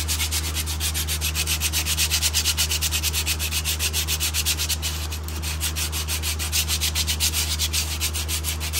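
Sandpaper rubbed by hand back and forth on metal brake caliper parts, in fast, even strokes, several a second, to clean up the filed grooves so the brake pads slide in easily.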